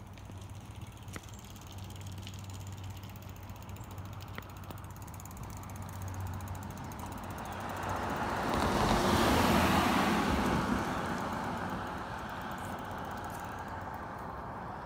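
A road vehicle drives past, its noise swelling to its loudest about nine to ten seconds in and then fading away.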